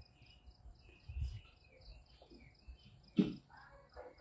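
Insects chirping outdoors in a steady high pulse, about four beats a second, with faint bird chirps over it. A short, louder sound breaks in about three seconds in.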